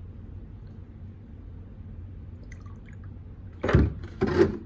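Milk being poured into a cup, with two short loud sounds about half a second apart near the end, over a faint steady low hum.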